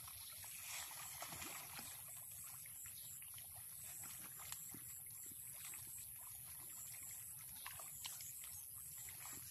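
Faint outdoor ambience: a low steady rumble with many small scattered clicks, and a faint high chirping that repeats throughout.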